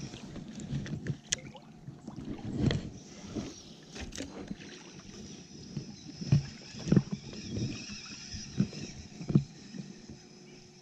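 Shallow river water sloshing and splashing close by, over the steady rush of the current, with a run of soft, irregular splashes in the second half.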